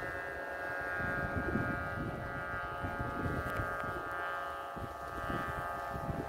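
Strong wind buffeting the microphone in uneven gusts, with a steady drone of several held high tones above it.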